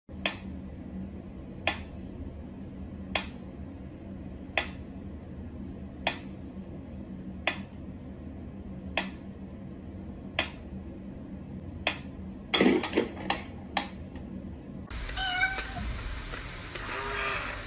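A mechanical pyramid metronome ticking slowly, about one tick every second and a half, breaking into a quick irregular flurry of clicks about two-thirds of the way through. Near the end a cat meows several times.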